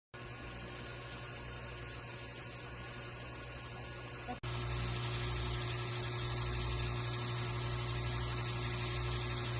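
Steady low hum with an even hiss and no other events: background noise of a recording. It jumps abruptly louder about four and a half seconds in, where a faint steady tone joins it.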